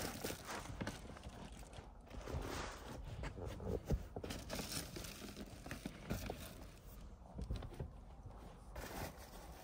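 Irregular light knocks, taps and rustles of handling inside a car, beginning with a foil bubble windscreen sunshade being pressed into place. One sharper knock comes about four seconds in.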